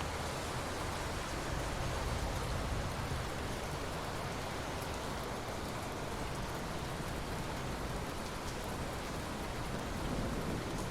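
Steady rain falling, an even hiss of drops with a continuous low rumble underneath.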